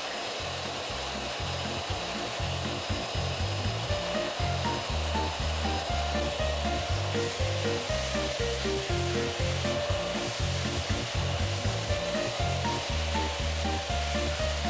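Vacuum cleaner running steadily, its even motor-and-suction noise under background music with a stepping bass line and melody.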